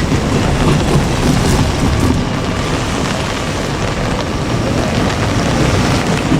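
JR Kyushu 817-series electric train running past with a steady, loud low rumble of wheels on rails.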